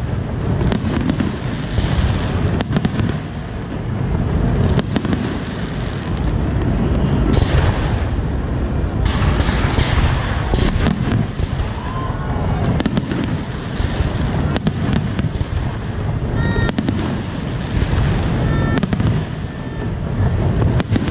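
Fireworks display going off: many sharp bangs and crackles, some close together, over a continuous low rumble of further bursts.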